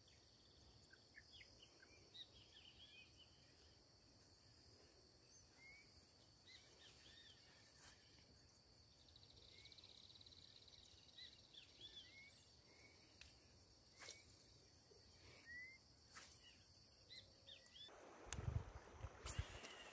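Faint riverside ambience: a steady high insect drone with scattered short bird chirps. Near the end the drone stops and a few louder thumps and rustles come in.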